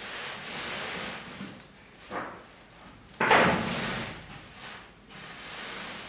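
Pleated woven fabric set with heavy metal plates rustling and rasping as hands spread it open. There is a sudden, much louder swish a little over three seconds in that fades over about a second.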